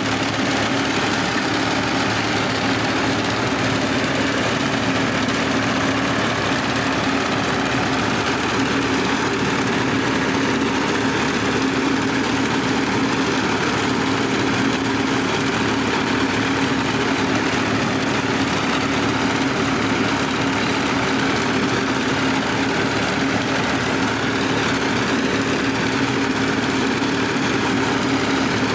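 Tractor's diesel engine running steadily under load while it drives a front-mounted reaper cutting paddy, a loud even hum with a strong low tone.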